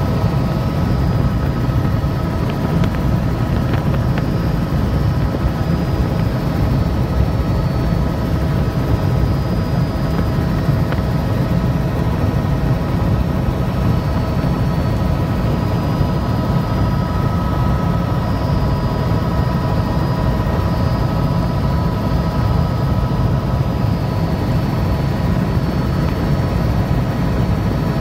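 Helicopter in level flight, heard from aboard: a steady, loud drone from the rotor and engine, with several steady whining tones above it.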